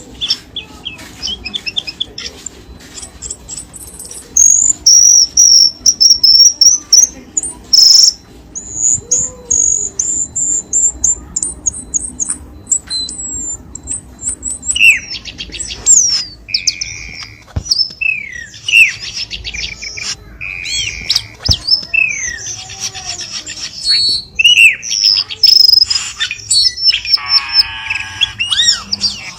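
Cucak keling songbird singing: a fast, varied string of high chirps, whistled notes and rapid trills, with a buzzing, rattling trill near the end.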